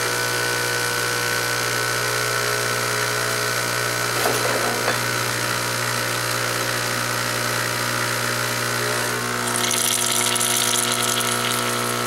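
The espresso machine's electric water pump runs with a steady hum, pushing water through the brew boiler to the pod. Near the end a hiss joins in. The pump is slow to get going, which the owner thinks could be the machine itself or a small clog.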